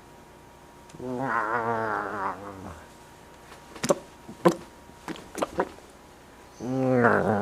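A person wailing a long, warbling 'waaaa', then a quick run of sharp hiccups, then a second wail starting near the end.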